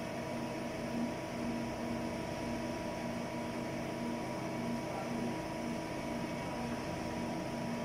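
HAAS CNC lathe running with a steady machine hum: several constant tones, one low tone pulsing on and off about three times a second, over a faint fan-like hiss.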